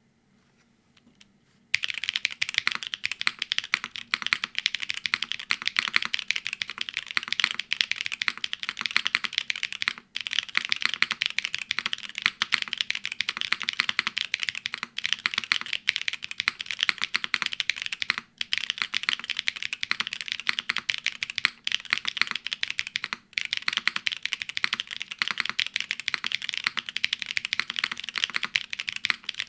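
Rapid, continuous typing on a Neo75 CU custom mechanical keyboard with Holy Panda OG tactile switches, GMK keycaps and an aluminium plate, gasket-mounted with no foam. The typing starts about two seconds in and has a few brief pauses.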